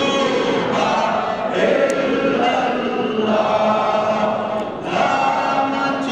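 A crowd of men chanting together in long held notes, a devotional chant of a Sufi gathering.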